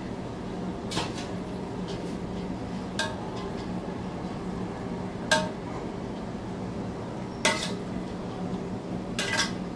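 Metal slotted spoon clinking against an aluminium cooking pot while rice is spread and levelled, about five sharp strikes roughly two seconds apart, over a steady low hum.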